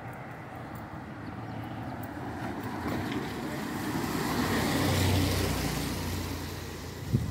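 A vehicle passing on a wet road: tyre hiss and a low engine hum that build to a peak about five seconds in, then fade. A brief sharp thump near the end.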